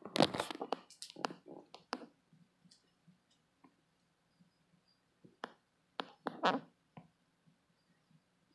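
Sharp clicks and light taps: a quick flurry in the first two seconds, a few faint ones, then another flurry about five to seven seconds in.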